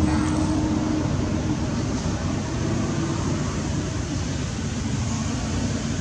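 Steady low rumble of an engine running, with a low hum whose pitch shifts partway through.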